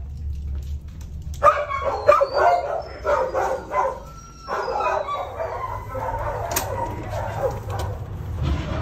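Dogs barking in a shelter kennel area: a series of separate barks from about a second and a half in, then denser, overlapping barking in the second half.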